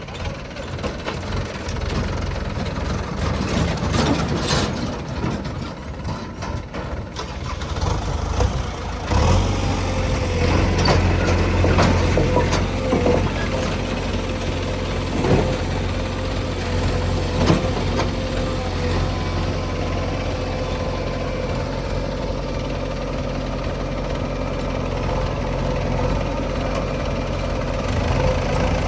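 Diesel engine of heavy construction machinery running, getting louder about nine seconds in, with a steady whine over it after that. A few sharp knocks come between about eleven and eighteen seconds in.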